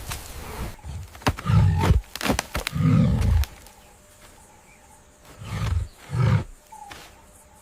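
An animal giving four short, deep growls, the first two longer and louder, with a few sharp clicks between them.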